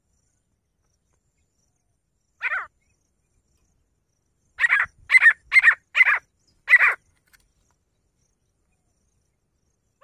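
Grey francolin (teetar) calling: one short harsh note, then a run of five loud, short notes about half a second apart.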